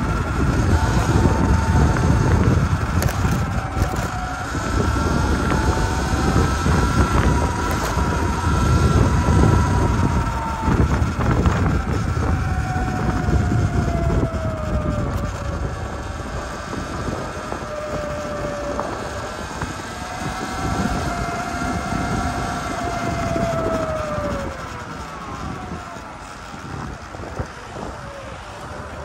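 Sur-Ron electric dirt bike riding along, its motor whine rising and falling with speed over wind noise and road rumble. Near the end the whine glides down and the sound gets quieter as the bike slows.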